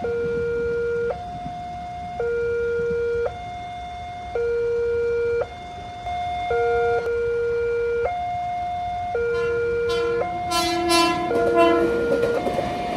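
Railway level-crossing warning siren sounding a steady two-tone hi-lo alternation, switching pitch about once a second. Near the end, clattering and a lower tone join in.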